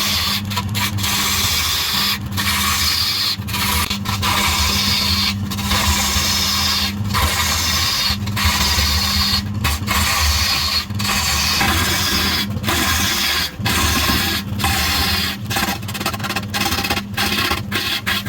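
Wood spinning on a running lathe being worked with a tool: a continuous scraping hiss over the lathe motor's steady hum, broken by many short breaks as the tool lifts off the wood.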